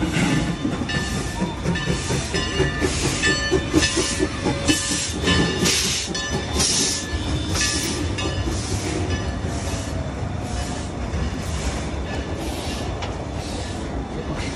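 Steam locomotive passing close by, chuffing in a steady rhythm of hissing exhaust beats, roughly one every half second to a second, over a low rolling rumble. The chuffs fade in the second half as the passenger cars roll past.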